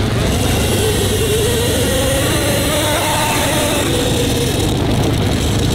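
A 50cc two-stroke kids' dirt bike engine revving as the bike pulls away from a practice start and rides off, its note wavering up and down.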